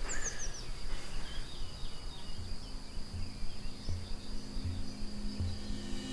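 Rural outdoor ambience: a steady high insect trill, like crickets, with birds chirping, mostly in the first second. From about two and a half seconds in, a soft low beat of music starts up and repeats under it.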